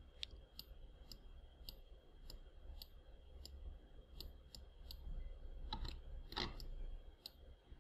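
Faint computer mouse clicks, a quick run of about three light clicks a second, with a few stronger clicks about six seconds in, as vertices are selected one by one.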